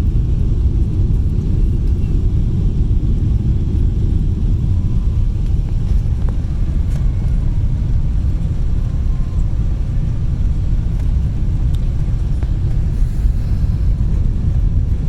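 Steady low rumble inside a Boeing 777 airliner's cabin on final approach to land: engine and airflow noise, even in level throughout.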